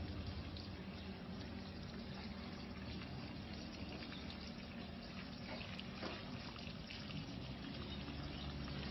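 Water trickling and pouring steadily: a thin stream spilling from a plastic tub into the tub below, fed by a running garden hose.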